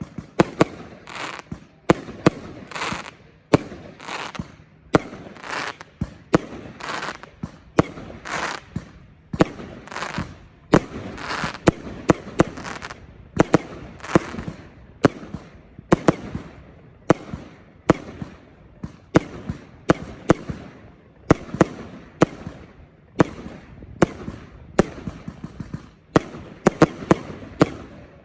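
Zeus Fireworks 'Exodus' compound barrage firing: a continuous run of sharp shots and bangs about two a second, with a hiss between them.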